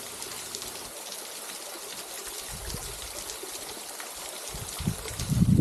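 Spring water seeping out of a rock face and trickling down about 20 feet into a pool, a steady running-water hiss. Near the end a louder low rumble sets in.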